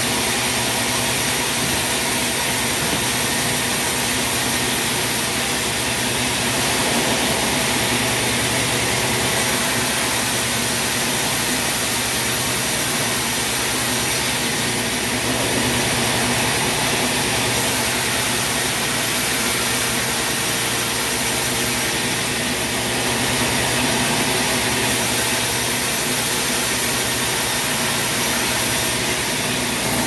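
Large band sawmill running steadily: a constant, dense machine noise with an even hum underneath and no breaks.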